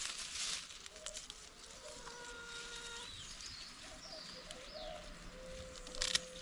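Hens giving drawn-out calls, with small birds chirping high above them and a couple of short rustles, one at the start and one about six seconds in.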